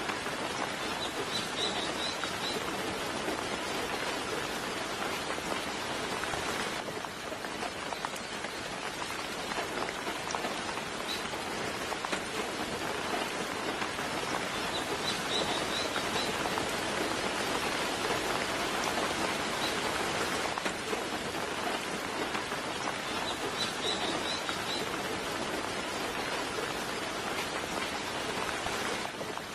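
Steady soft rain pattering on surfaces. A bird gives short bursts of high chirps three times: just after the start, about halfway through and near the end.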